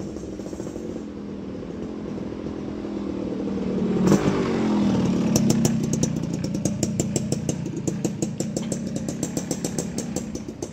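A motorcycle passes close by about four seconds in, its engine pitch dropping as it goes past. A rapid, even puttering of engine pulses follows.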